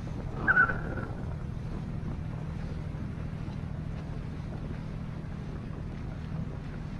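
Outrigger boat's engine running at a steady cruise, a low even hum with wash and wind noise underneath. About half a second in, one short, sharp high-pitched sound cuts through, louder than the engine.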